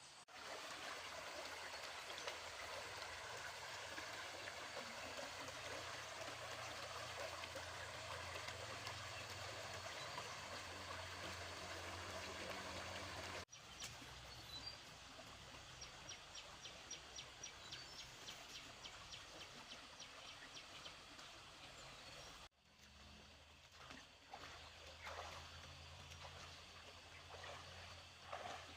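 Water flowing and trickling with rural outdoor ambience. The sound breaks off abruptly twice, and a rapid, even series of high ticks runs through the middle part.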